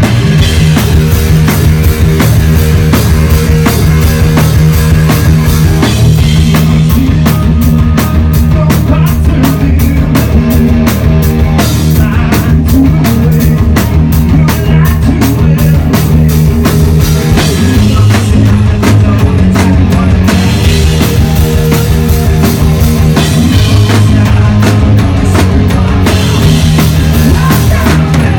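Rock band playing live and loud: drum kit with a steady beat under electric guitar and bass.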